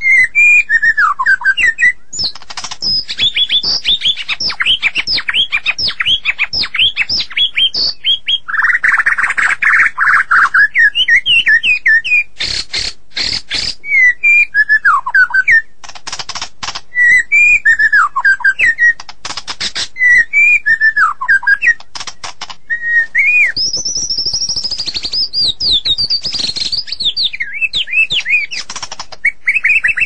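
White-rumped shama (murai batu) singing: a string of loud whistled phrases that swoop up and down, broken by runs of sharp clicking notes and a harsh rasping note. A high sweeping phrase comes near the end.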